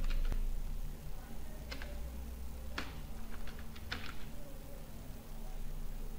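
Typing on a computer keyboard: a few irregular keystrokes over a steady low hum.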